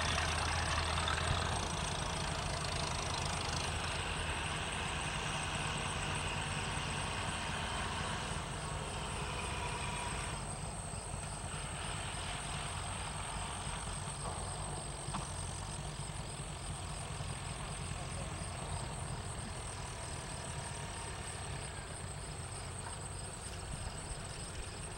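Farm tractor engines running as a line of tractors drives past, loudest at the start and fading gradually as they move on.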